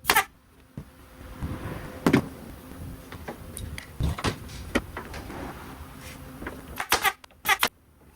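Pneumatic staple gun firing sharp snaps: once near the start, once about two seconds in, and a quick few near the end. Duller knocks of wood being handled come in between.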